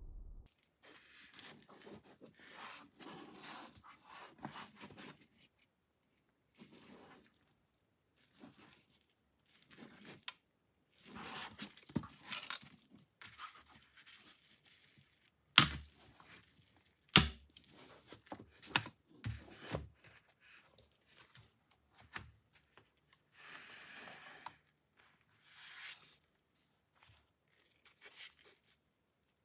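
Gloved hands handling a plastic Glock pistol case: rustling and scraping, then two sharp snaps about a second and a half apart as the case's two latches are flipped open, followed by more handling noise as the pistol is taken out.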